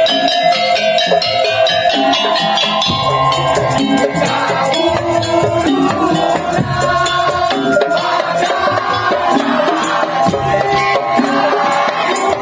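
Tong-tong ensemble music: dense percussion with rattling shakers and drums under a steady, held melody line.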